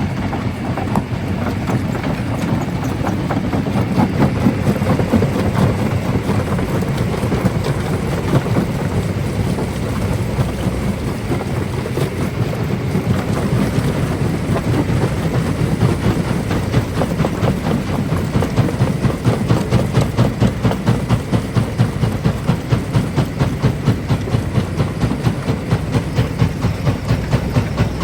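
Large primary jaw crusher running, crushing black stone: a heavy, loud mechanical rumble with a rapid, even beat that becomes more marked in the second half.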